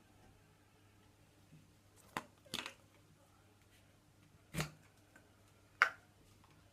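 Four short, separate knocks and clacks of objects being handled, over a faint steady hum.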